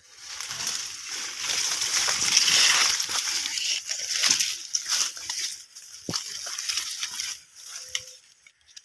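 Long leaves of tall grass rustling and swishing against one another as the grass is pushed through, with crackles from dry stalks. Heaviest over the first three seconds, then patchier, fading out near the end.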